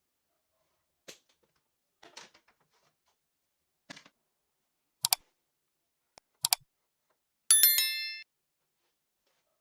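A few short clicks and knocks, then a short metallic ringing with several steady pitches, like a small bell or chime, dying away within about a second.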